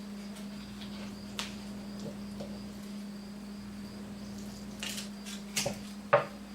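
Knife work while jointing chicken wings: a few short clicks and knocks, the loudest about six seconds in, over a steady low hum and a faint high whine.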